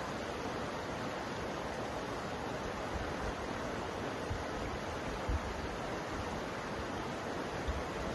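River water flowing steadily, a continuous even rushing, with a few brief low bumps about two-thirds of the way in and near the end.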